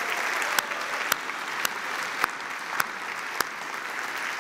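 Large conference audience applauding an announcement, a steady wash of clapping with sharp single claps standing out about twice a second.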